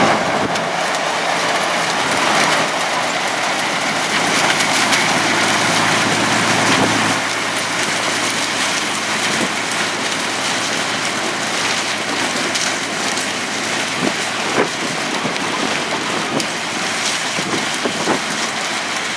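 Sugarcane harvesting machinery running: a steady rushing noise with scattered light clicks and knocks.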